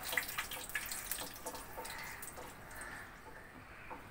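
Two dried red chillies frying in hot oil in a kadai, stirred with a wooden spatula: steady sizzling with many quick pops and crackles.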